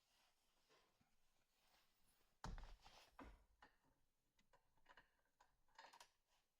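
Near silence with faint handling sounds: a single soft knock about two and a half seconds in, then small clicks and rustles.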